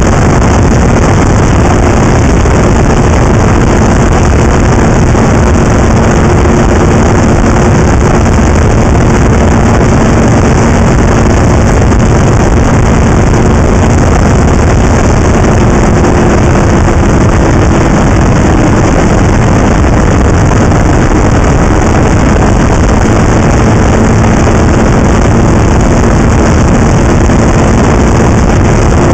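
Snowmobile running at a steady trail speed: a loud, constant engine drone under a heavy rushing noise, with the engine note sagging slightly about two-thirds of the way through.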